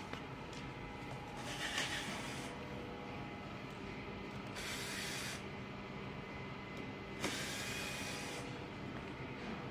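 Cordless electric screwdriver running in three short bursts, each about a second long, driving bolts at a scooter's front fork and brake caliper, over a steady low hum.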